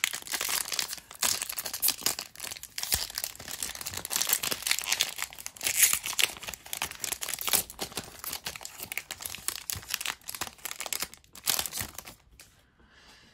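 Foil wrapper of a Pokémon trading card booster pack crinkling and tearing as it is opened by hand, a dense run of crackles and sharp snaps that dies away near the end once the cards are out.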